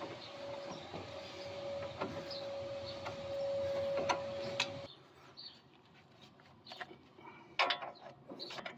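A small electric motor whirring steadily at one pitch, stopping abruptly about five seconds in, followed by a few sharp metallic clicks and taps of hand tools near the end.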